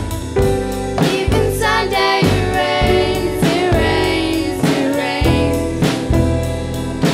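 A live band playing a pop-rock song on electric guitar, double bass and drum kit, with a drum beat about once a second. A sung line rises and falls over the band through the middle.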